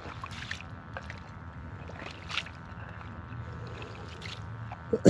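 Ice-fishing skimmer scooping slush and ice chips out of a drilled hole in lake ice: wet sloshing with a few short scrapes, over a steady low background rumble.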